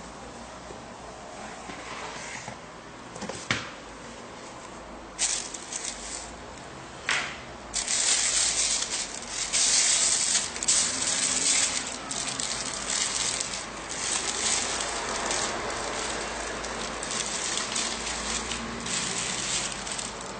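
A cardboard boot box being opened, with a few sharp knocks of the lid, then a long stretch of loud rustling and crinkling as the tissue paper inside is pulled apart and the boots are unwrapped.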